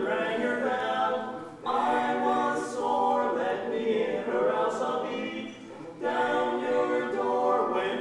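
Vocal quartet singing a cappella in close harmony, holding sustained chords. The phrases break briefly about a second and a half in and again near six seconds.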